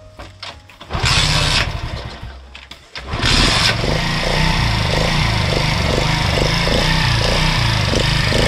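Small scooter engine being started on its first try after a freshly fitted carburetor and muffler. A first burst about a second in dies away, then it catches about three seconds in and keeps running steadily.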